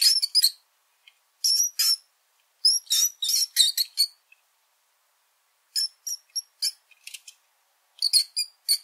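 Rodent squeaking: runs of short, high-pitched squeaks in groups of several, separated by pauses of about a second.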